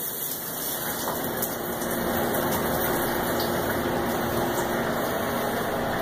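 Commercial dishwasher running with its door open, its interlock fooled by a magnet: the wash pump runs steadily with a low hum while hot wash water sprays out of the open machine.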